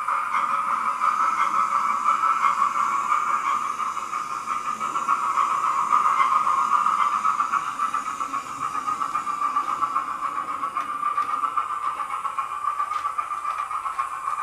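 OO gauge model steam locomotive hauling coaches along the track: a steady running whirr with a fast flutter.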